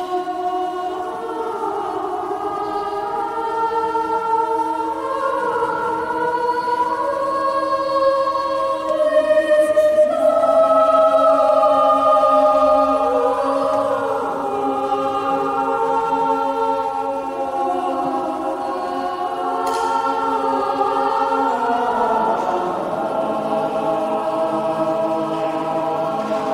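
Mixed chamber choir singing sustained chords in a church, the voices moving between held notes and swelling loudest about ten seconds in.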